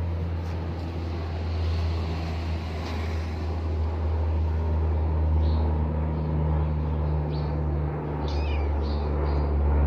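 Steady low hum of a running engine, with a few faint clicks and a brief high-pitched call about eight seconds in.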